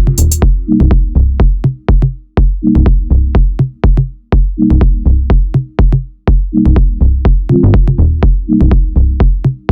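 Electronic dance music with a drum-machine beat and a deep bass line.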